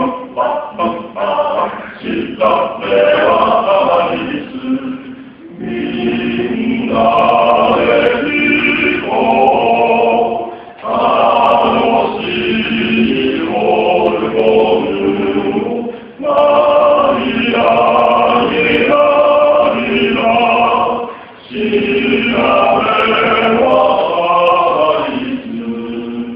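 Small male vocal ensemble singing in harmony, in phrases of about five seconds with brief breaks between them; the opening notes are short and detached.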